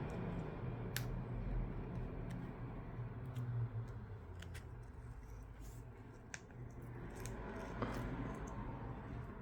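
Flat pry tool working along the seam between a Samsung Galaxy S21's back glass and frame, cutting through the warmed adhesive: faint scraping with scattered small clicks over a low steady hum.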